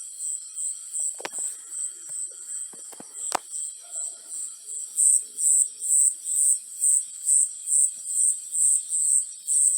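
Cricket chirping steadily, high-pitched, about two chirps a second, louder from about halfway through. A couple of faint sharp clicks in the first half.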